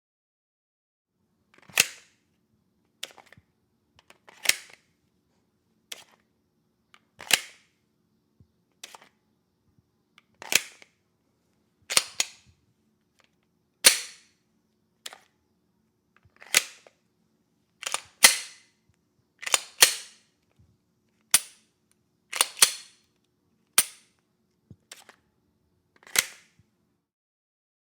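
Pistol being reloaded: a series of sharp metallic clicks and clacks from the magazine and slide, some in quick pairs, about every one to two seconds.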